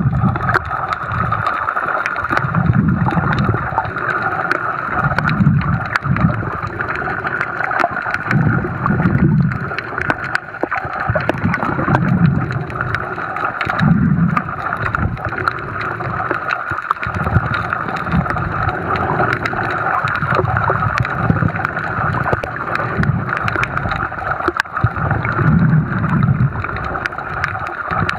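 Underwater sound picked up by a submerged camera: a steady water hiss with scattered clicks, and a low gurgling rumble that swells and fades about every three seconds.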